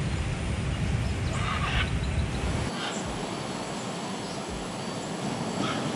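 Scarlet macaws giving harsh squawks, one about one and a half seconds in, a short one just under three seconds in and another near the end. A low rumble runs under the first half.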